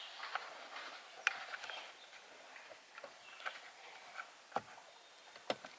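Faint handling noise as wire ends are pushed back into a car's wiring terminal: scattered small clicks and rustles of wire and plastic, with a few sharper clicks.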